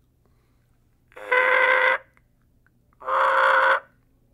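Turkey diaphragm mouth call blown through its latex reed: two steady, held notes of just under a second each, the first about a second in and the second about three seconds in. This is the basic beginner's sound, made by lightly touching the tongue to the latex and blowing from the diaphragm.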